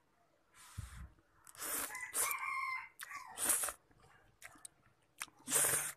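Short breathy noises of someone eating, slurping and blowing on hot instant noodles four or five times. A rooster crows in the background about two seconds in.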